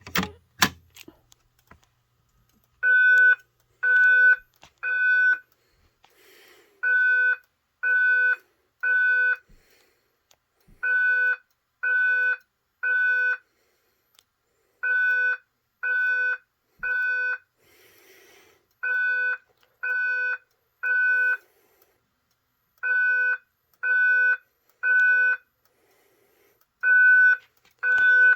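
Simplex fire alarm speaker strobe sounding its evacuation tone alone, with no voice message: groups of three beeps about a second apart, each group followed by a pause, repeating. A sharp click comes near the start, before the beeps begin.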